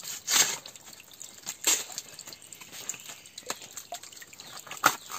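Crisp tearing and snapping as the moist layers of a fresh wild plant shoot are peeled and split by hand, three sharp strips about half a second in, a little before two seconds, and near the end, with soft rustling between.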